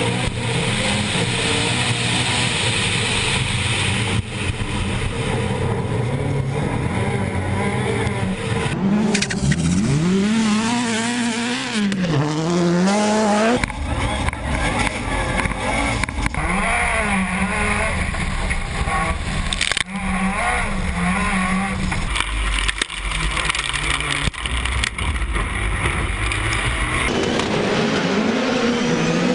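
Rallycross race car engines revving hard, the pitch climbing and dropping again and again through gear changes and lifts. The sound changes abruptly several times, as if cut between different moments of the race.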